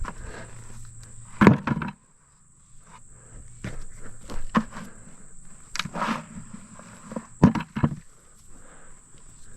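Footsteps on dry soil with several sharp knocks as potatoes are picked up and dropped into a pail.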